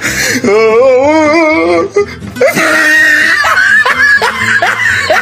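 Music with a voice holding a wavering, drawn-out note for about a second and a half, then laughing in quick repeated bursts.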